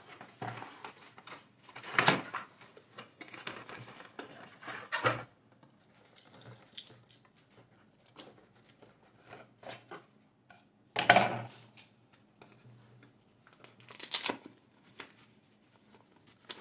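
Cardboard packaging being handled and pulled open: rustling and scraping of box flaps and a cardboard insert in irregular bursts, with softer clicks and taps between, the loudest about eleven seconds in.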